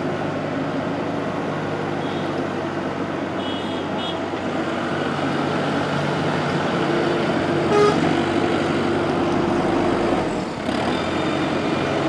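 Wheel loader's diesel engine running steadily as the machine drives and pushes a pile of brick chips. A vehicle horn toots briefly about eight seconds in.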